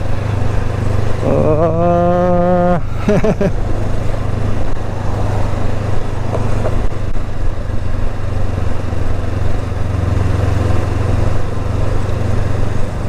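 Motorcycle engine running steadily at low speed in second gear, heard from the bike itself with road and wind noise. About a second in, a held pitched tone sounds for about a second and a half.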